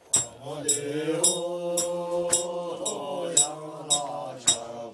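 A man chanting a Buddhist prayer in long, drawn-out notes. A sharp metallic clink sounds about twice a second in a steady beat.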